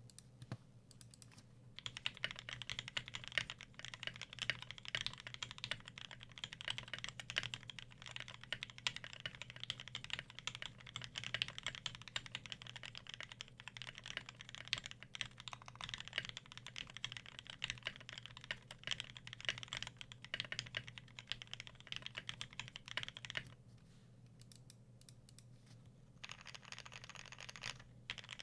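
Fast, continuous typing on a custom 60% mechanical keyboard with lubed and filmed Durock L2 switches, an aluminium plate, pudding keycaps and EVA foam and tape mod in a Tofu60 case. The typing starts about two seconds in, thins to a few scattered keystrokes for a couple of seconds near the end, then picks up again.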